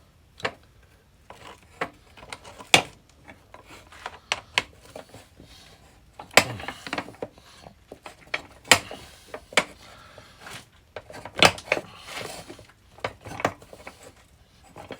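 Hand tools clinking and knocking against metal at irregular intervals while working at seized bolts on a motorcycle headlight cage, with a few louder knocks and short scraping rubs.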